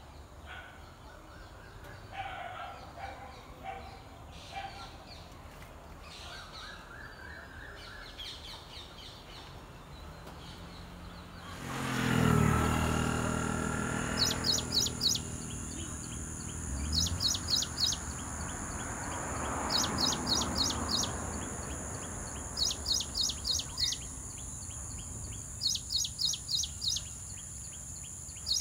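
A small songbird singing: short bursts of five or six quick, high, evenly spaced notes, repeated about every three seconds through the second half, over a steady high hiss. Before that there are only faint scattered bird calls, and about twelve seconds in there is a brief low rumble.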